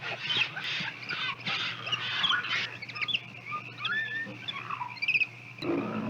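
Mixed wild animal calls, many short chirps, squeaks and whistled glides from birds and small monkeys, over a steady low hum. Near the end a click brings a sudden change to a different, lower-pitched animal sound.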